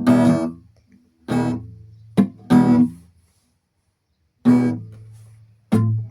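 Acoustic guitar strummed a chord at a time: about half a dozen separate strokes, each left to ring and die away, with a pause of about a second and a half in the middle.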